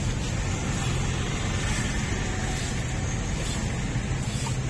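Steady low rumble of road traffic, with faint regular squirts of milk hissing into a steel can as a cow is milked by hand.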